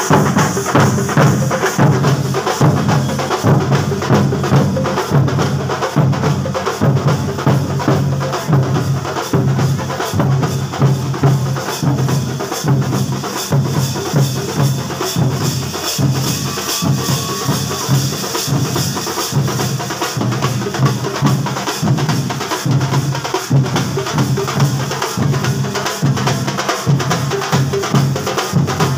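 A percussion troupe of drums and cymbals plays a loud, fast, steady beat without a break.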